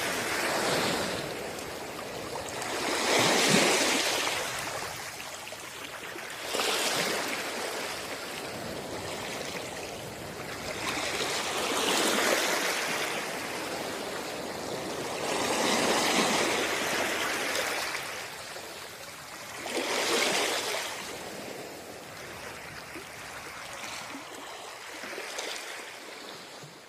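Sea waves washing onto a beach, the surf swelling and ebbing about every four to five seconds, fading out at the end.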